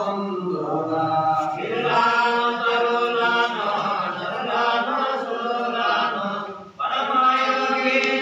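A group of devotees chanting a devotional recitation together, unaccompanied voices in long held phrases, with a brief pause about three-quarters of the way through.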